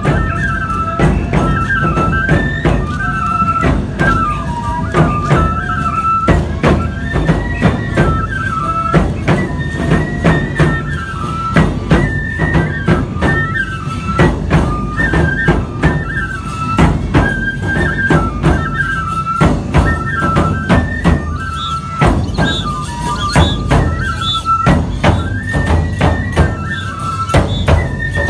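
Live nebuta hayashi festival music: bamboo flutes playing a repeating melody over steady taiko drum beats and the clash of tebiragane hand cymbals.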